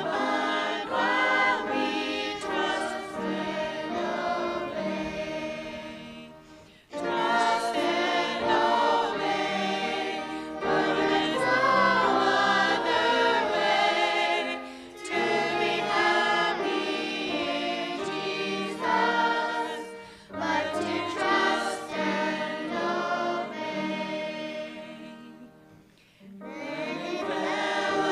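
A group of adults and children singing a hymn together, with a few brief breaks between lines.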